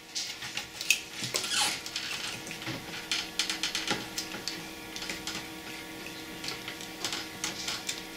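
Small irregular clicks and scratches of a tool and fingers working a rubber drive belt onto the pulleys inside an open cassette deck, over a faint steady hum.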